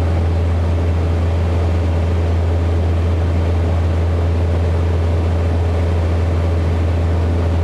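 Socata TB-9 Tampico's four-cylinder Lycoming piston engine and propeller running steadily in flight, heard inside the cockpit as a constant low drone.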